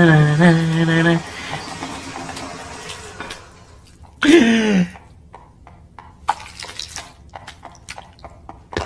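A voice holding a sung note for about a second, then a short falling vocal sound about four seconds in, followed by a scatter of small clicks and ticks.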